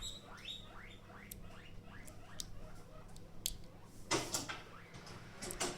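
Number wheels of a cheap cable bike combination lock being rolled through their digits with a thumb, a quick run of small clicks at about five a second, then a few sharper clicks and two louder scrapes of handling near the end. The lock is held under tension while the wheels turn, so the clicks are felt for feedback at the right number.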